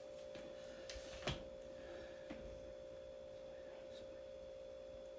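Quiet room tone: a faint steady hum, with a few light taps and one brief knock about a second in.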